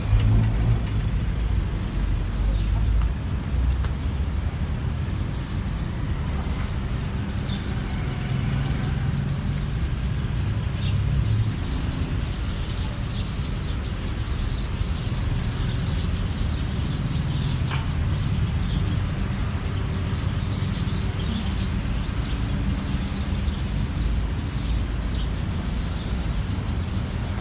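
Street traffic noise: a steady low rumble of cars and motorbikes passing on a city road.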